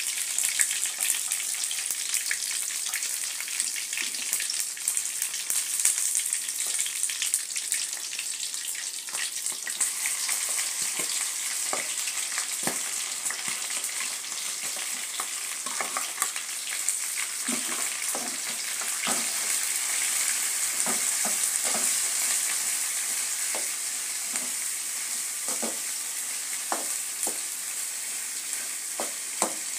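Chicken pieces sizzling as they fry in oil in a metal wok, with a spoon stirring and scraping against the pan in irregular clicks and knocks, more of them in the second half.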